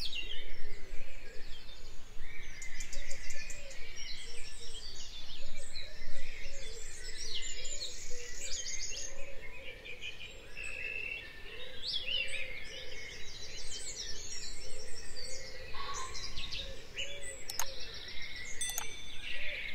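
Birds chirping and singing in a dense chorus, many quick overlapping calls and trills, with a lower-pitched call repeating over and over beneath them.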